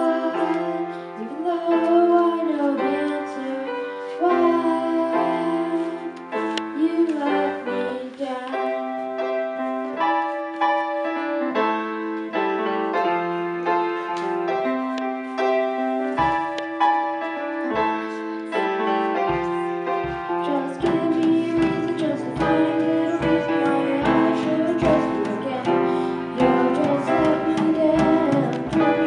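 Live band music: a grand piano plays alone at first, then a drum kit comes in about halfway through with a steady kick-drum beat. In the last several seconds a boy's voice sings over the piano and drums.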